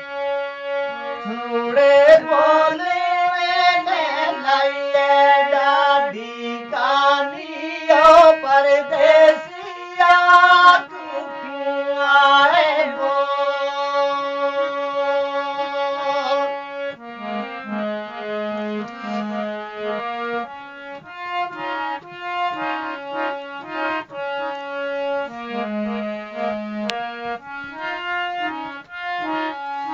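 Harmonium playing a folk melody, with a singing voice wavering over it for roughly the first half; from about midway the harmonium carries on alone in clear, stepped notes.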